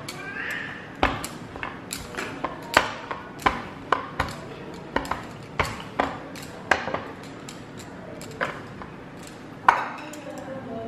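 Wooden rolling pin rolling dough out on a wooden chopping board, knocking sharply against the board at irregular intervals, roughly one or two a second. The loudest knock comes near the end, as the pin is set down.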